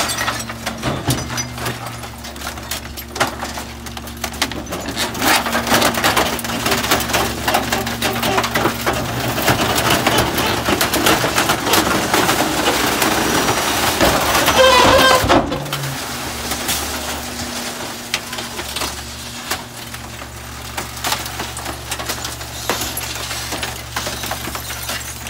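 McNeilus rear-loader garbage truck's hydraulic packer compacting bulky waste, with wood and furniture cracking and splintering over the steady running of the truck's engine. The loudest stretch is about two-thirds of the way in, with a high squeal, and it drops off suddenly.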